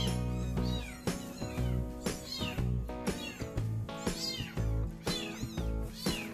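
A kitten mewing repeatedly, short high-pitched mews about once a second, over background music with a steady bass line.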